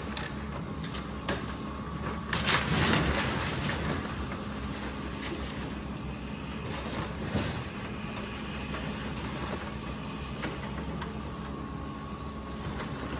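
A demolition machine's diesel engine runs steadily while the building is torn down. A loud crashing rumble of breaking structure comes about two and a half seconds in, with scattered knocks and clatter of debris.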